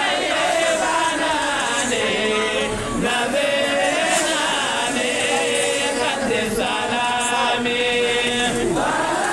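A group of voices chanting together, with long held and gliding notes.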